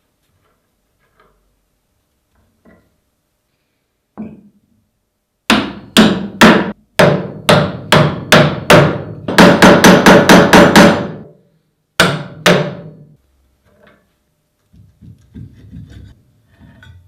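Hammer blows through a wooden block onto a rusty metal shear held in a vise, knocking its parts apart. The strikes start about half a second apart, then come several a second with a ringing note under them, stop, and two last blows follow; light metal handling clatter near the end.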